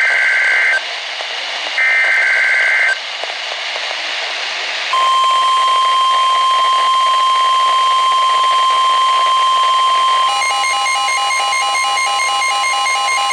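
Weather Radio alert broadcast: two roughly one-second warbling SAME data bursts over radio hiss, the digital header that announces a warning. About five seconds in, the steady 1050 Hz NOAA Weather Radio warning alarm tone starts and holds. Near the end, a rapidly pulsing beep sounds along with it.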